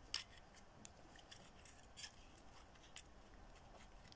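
Faint, scattered small clicks and scrapes of fingers working at the stiff body shell of a model locomotive, trying to ease it off its chassis.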